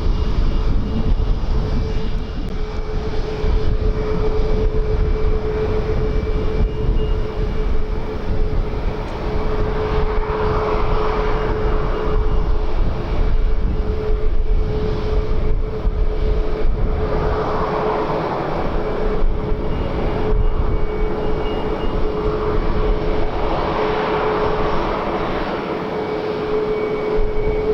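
Aircraft engine running with a steady whine, swelling in noise a few times, under heavy wind rumble on the microphone.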